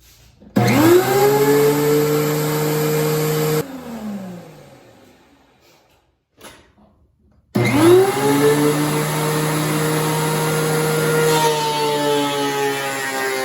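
DeWalt DW735X thickness planer switched on, its motor spinning up to a steady whine, then switched off and coasting down after about three seconds. It is started again about halfway through, and its pitch sags slowly near the end.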